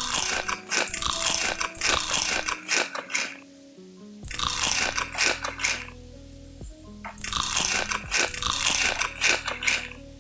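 Crispy fried chicken being bitten and chewed close to the microphone, in three spells of loud crunching, over steady background music.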